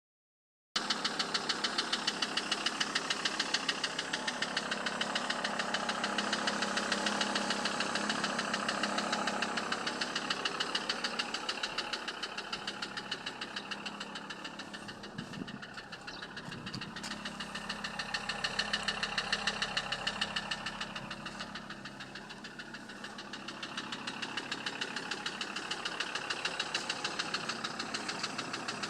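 SsangYong Rexton 2.7 diesel engine idling with a fast, regular knock, a fault whose cause the owner has not yet found.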